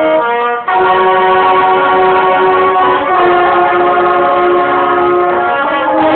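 School band's wind and brass instruments holding long sustained chords, moving to a new chord every two to three seconds, after a short break just after the start.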